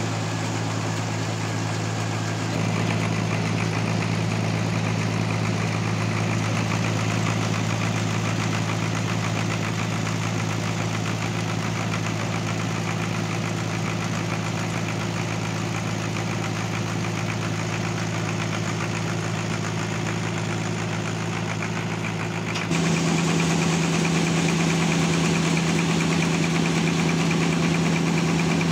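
Homemade sawmill's engine running steadily with a constant hum. About 22 seconds in, the sound switches abruptly to a louder, higher-pitched hum.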